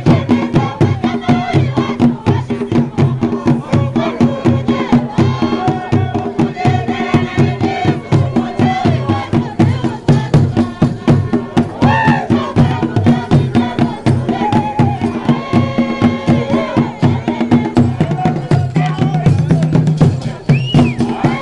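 Traditional Rwandan drum ensemble beating a fast, steady rhythm on tall standing wooden drums, with a group of voices chanting and singing and hands clapping along.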